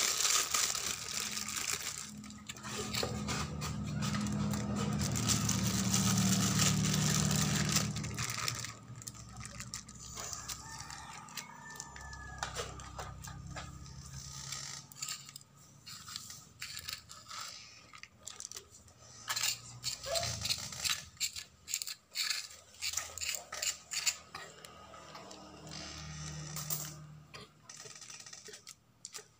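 A metal spoon scraping and clicking against a stone grinding slab and a thin plastic bag crinkling as soft bait paste is scooped and packed into the bag, in many short irregular clicks and scrapes. A low steady hum runs under the first third and then fades.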